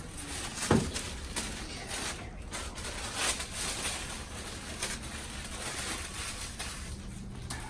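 Rustling and shuffling of a person and clothing moving on a chiropractic treatment table, with a sharp knock about a second in.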